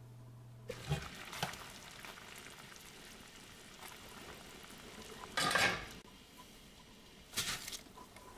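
Food sizzling in a frying pan while being stirred, with several louder scrapes or clatters of the utensil against the pan; the loudest comes about five and a half seconds in.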